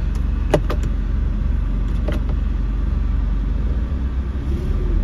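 A car running with a steady low rumble, and a few short sharp clicks in the first couple of seconds.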